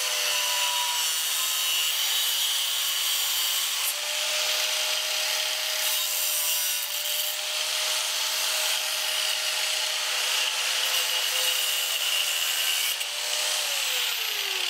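Handheld angle grinder running, its disc grinding the collar off a metal vent fitting: a steady whine with a harsh rasping hiss. About a second before the end the pitch drops as the grinder is switched off and spins down.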